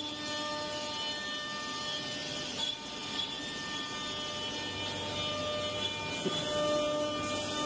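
Woodmaster six-axis CNC woodworking machine running: a steady mechanical hum with several held whining tones, which shift slightly about six seconds in.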